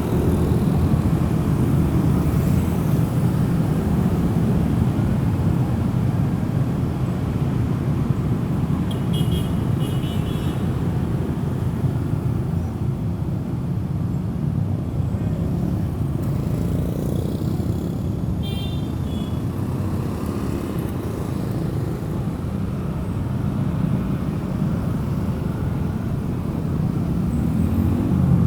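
Steady road-traffic rumble of passing vehicle engines and tyres, with two brief high-pitched horn toots, about nine seconds in and again near eighteen seconds.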